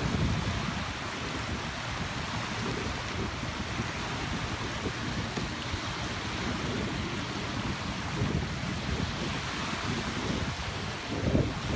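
Wind gusting on the microphone over the steady wash of small waves breaking at a lake shore.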